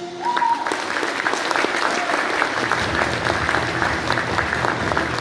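Audience in a concert hall applauding, the clapping starting about a quarter second in as the last note of the music stops.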